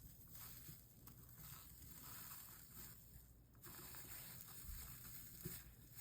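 Near silence with faint, irregular scratchy crackling and scraping from soldering work on a copper-foiled stained-glass panel.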